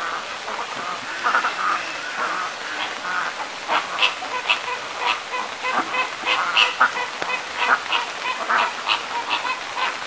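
Caribbean flamingos honking, a steady chatter of short goose-like calls, several a second.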